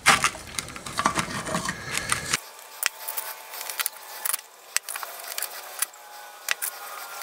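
Clattering metal-on-metal handling as a wrench grips and twists the metal cap off a tin can. About two and a half seconds in the sound changes abruptly, and after that only scattered light clicks and taps are heard.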